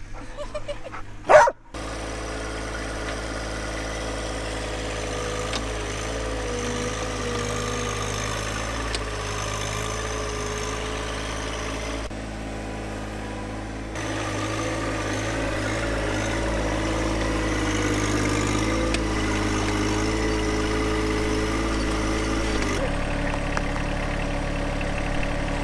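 John Deere 1025R compact tractor's three-cylinder diesel running steadily while its front loader scrapes up and lifts dirt, the engine note wavering slightly as the loader works. A short sharp sound about a second in comes just before the engine is heard.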